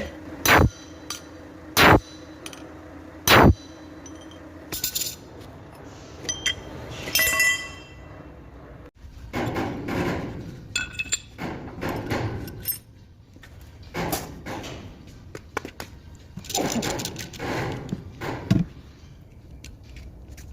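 Three loud metal-on-metal blows, about a second and a half apart, like a hammer striking steel, followed by lighter clinks and clanks of metal parts being handled.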